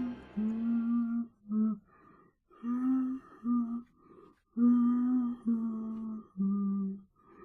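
A voice humming a slow tune: about seven short held notes, with brief pauses between them.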